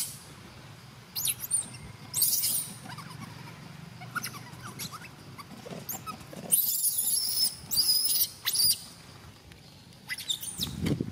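Young macaques squealing in a string of short, high-pitched bursts, the longest and loudest about two-thirds of the way through.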